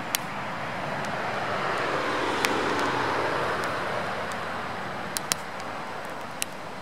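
Burning firewood crackling, with about five sharp pops, over a broad rushing noise that swells to a peak about halfway through and then fades.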